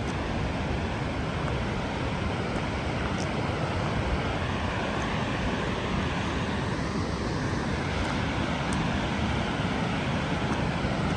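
Waterfall in heavy flow, a steady loud rush of water.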